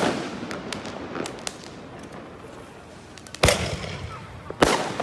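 Fireworks going off: three loud bangs, one at the start, one about three and a half seconds in and another a second after that, each trailing off in a rumble. Scattered small crackles come between the first two bangs.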